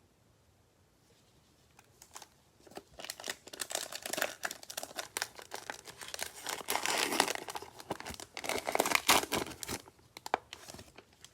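Cellophane wrapper of a football trading card cello pack being torn open and crinkled. The crackling starts about two seconds in and goes on for some eight seconds, dying away to a few small clicks near the end.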